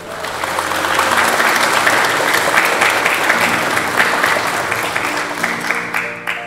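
A crowd of guests applauding, the clapping swelling over the first second and dying away near the end, with soft background music underneath.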